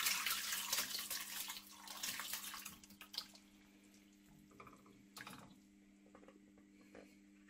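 A liquid beef-and-mushroom marinade of Guinness and stock pouring from a plastic bowl into a stainless steel wok. It splashes steadily for about two and a half seconds, then thins to a few soft plops and knocks as the last pieces slide out. A faint steady hum runs underneath.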